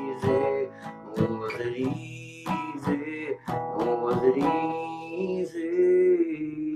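Acoustic guitar strummed in chords, about two strokes a second, with a last chord left ringing near the end.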